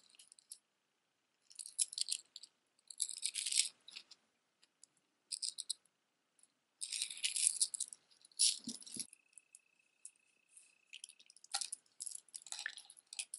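Metal necklace chains jingling and clinking in short, irregular bursts as they are handled, with a soft thump about nine seconds in.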